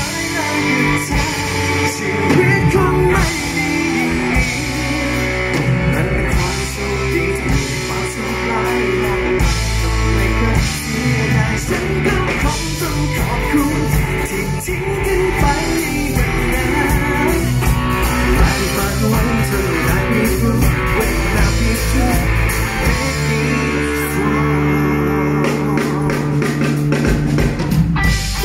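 Live pop-rock band playing: electric guitar, bass guitar and drum kit, with a male lead singer over them.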